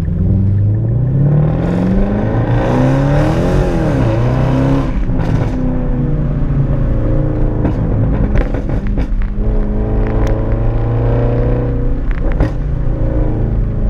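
Straight-piped Jaguar XF exhaust under acceleration. The engine note climbs over the first three seconds or so, peaks and falls away, then holds a steady drone, with a few sharp pops in the second half.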